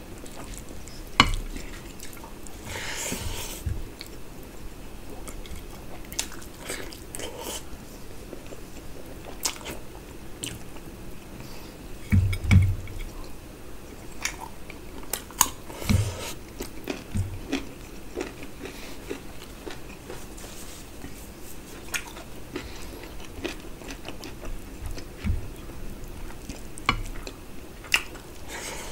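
Close-miked eating sounds of a person eating mutton curry and rice by hand: wet chewing and biting, squishy mixing of rice and curry with the fingers on the plate, and many scattered sharp clicks. A few low thuds stand out, the loudest about twelve seconds in.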